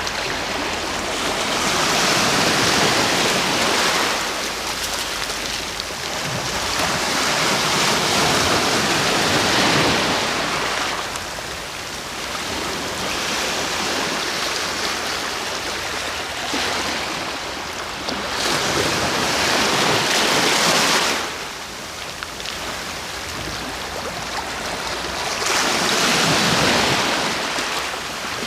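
Sea waves breaking and washing in, four swells of surf each lasting a few seconds, with a quieter hiss of wash between them.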